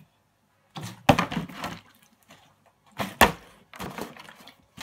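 Plastic water bottle with water in it knocking and clattering on a countertop in bottle-flip throws: a run of knocks about a second in, a single sharp, loud knock about three seconds in, and lighter knocks after it.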